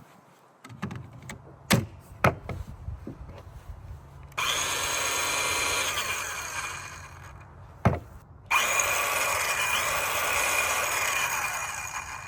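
Ryobi 18V ONE+ 4-1/2-inch cordless compact circular saw cutting wood in two runs, each starting abruptly and running a few seconds before fading. A few knocks and clicks come before the first run, and a sharp click comes between the two.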